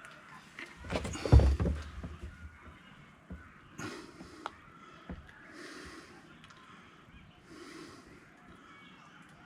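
Handling noises from mixing epoxy on a workbench: a loud knock and clatter about a second in, then a few light clicks, with breathing through the nose every couple of seconds.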